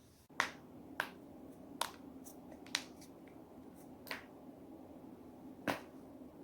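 Spinal joints cracking as they are forcibly twisted: about six sharp single pops at irregular spacing, with a few fainter clicks between, over a faint steady low hum.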